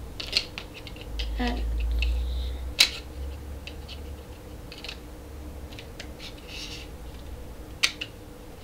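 Small clicks, taps and light rustling as a camera and its packaging are handled by hand, with one sharper click about three seconds in and another near the end. There is a low rumble in the first few seconds.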